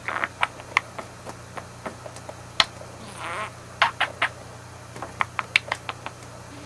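Pet budgie chattering: a quick string of sharp clicks and short chirps, with a brief warbling call about three seconds in.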